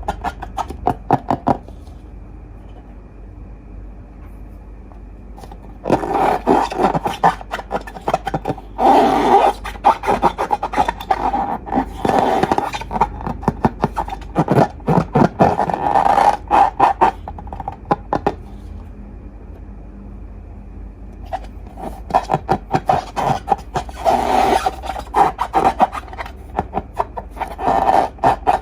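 Slime being squeezed and worked by hand: dense runs of wet, sticky crackles and pops. It comes in three bursts, with two pauses of a few seconds where only a faint background hum remains.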